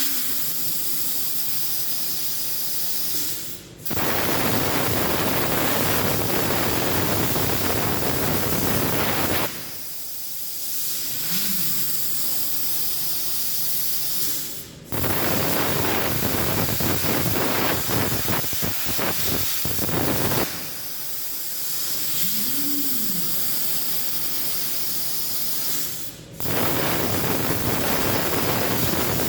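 CNC plasma cutter cutting steel: a loud, steady hiss of the plasma arc, heard in three long stretches that each start abruptly after a brief dropout. Between the cuts there is a quieter hiss and a short whine that rises and then falls.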